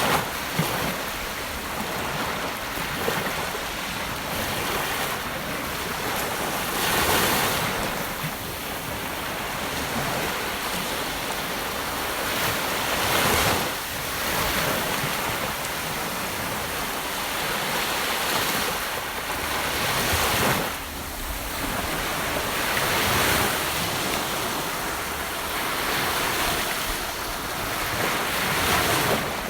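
Gentle ocean waves breaking and washing on a beach shore: a steady hiss of surf that swells with a breaking wave about every five or six seconds.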